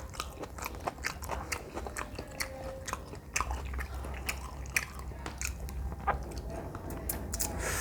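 Close-miked mukbang eating sounds: a person chewing and biting into jjajangmyeon noodles and green onion kimchi, with many quick, irregular wet mouth clicks and crunches.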